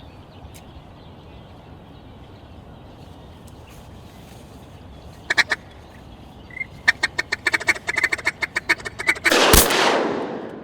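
A fast run of mallard quacks, about eight a second, then one loud shotgun shot near the end that fades away over about a second.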